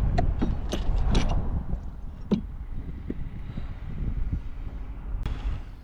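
Light metal clicks and knocks from a brake line flaring tool and steel tubing being handled, several in the first second or so, one about two seconds in and one near the end, over a low rumble.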